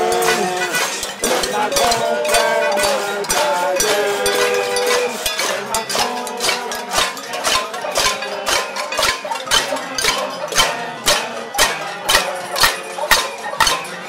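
Crowd banging metal pots and pans in a casserolade protest: many overlapping clanging strikes with some ringing at first, falling into a shared beat of about two strikes a second from around six seconds in.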